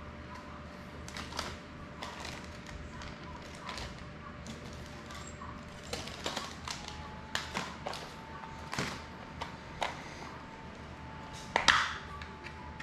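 Hands handling a small box and plastic packaging of drone parts: scattered light taps, clicks and crinkles, with one sharper knock near the end.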